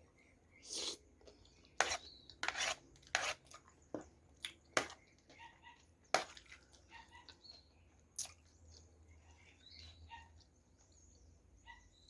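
Close-miked eating: wet mouth smacks and sharp clicks from chewing a mouthful of curry and rice, coming irregularly, with a cluster of louder smacks in the first five seconds.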